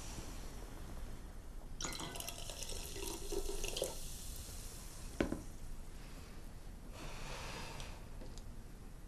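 Liquid pouring into a drinking glass for about two seconds, then a single sharp knock about five seconds in, and a softer, shorter stretch of noise near the end.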